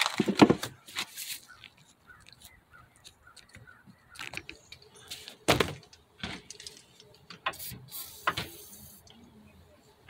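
Scattered clinks, knocks and scrapes of metal hand tools being handled against a car's belt-drive parts, with a brief hiss a little before the end.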